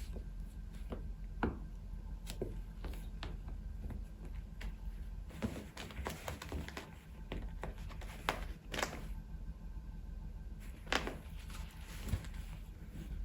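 Scattered light taps and knocks over a low steady hum, with a few sharper clicks about halfway and near the end.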